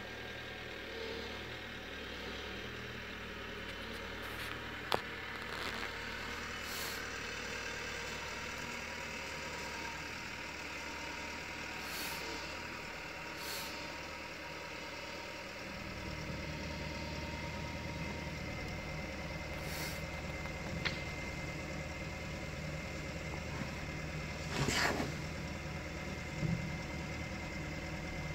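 Vehicle engine idling, heard from inside a car's cabin. About halfway through its low hum grows louder, and there are a few faint clicks.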